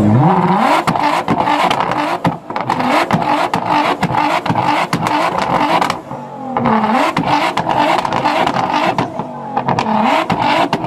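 Nissan GT-R's twin-turbo V6 revved hard while standing still, its pitch falling and climbing again between blips, with a dense crackle of pops from the exhaust throughout.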